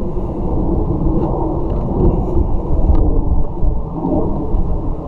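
Loud, continuous low rumbling noise on a chest-mounted GoPro's microphone, with no clear tone or rhythm.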